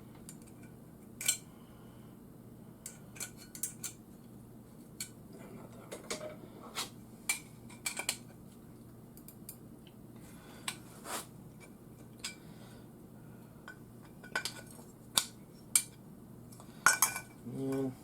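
Irregular metallic clicks and clinks as a small screwdriver works at a garage door opener's cast aluminium housing and its metal parts, with a loudest cluster near the end.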